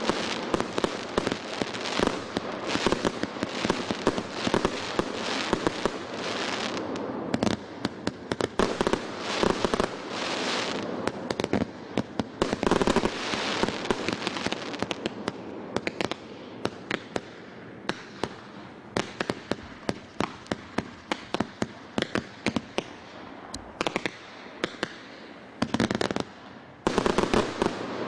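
The 'Korolevsky' (SP104300) firework going off in a rapid run of bangs and crackling bursts. The cracks thin out into sparser, quieter pops through the second half, then a loud volley comes near the end.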